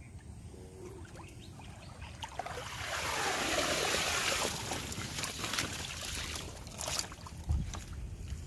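Water splashing and sloshing in a plastic crate of freshly caught small fish, loudest for a couple of seconds about three seconds in. After that come scattered short splashes and taps.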